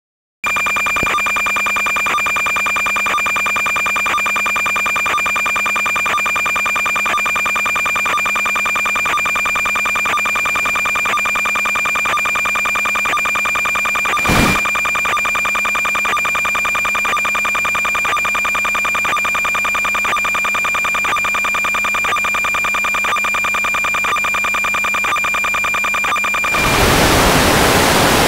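Electronic buzz on an analog FPV video link's audio channel: a steady high tone with a regular pulse two or three times a second, and a single click about halfway. Near the end it gives way to loud static hiss as the video signal is lost.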